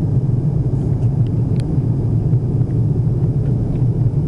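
Steady low rumble of an airliner's cabin noise in cruise flight, heard from inside the cabin.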